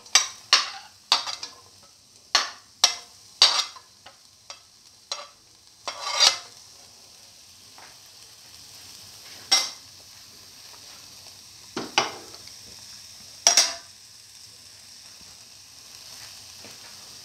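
Sliced onions frying in hot oil in a pan: sharp crackles and pops come several times a second for the first six seconds or so, then only now and then, over a faint steady sizzle.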